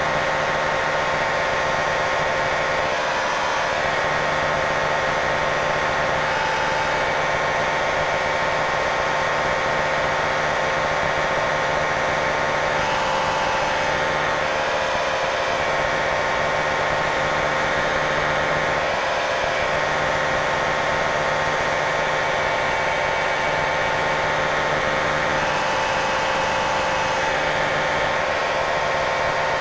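Piston engine of a small experimental airplane droning steadily in flight, heard from inside the cockpit.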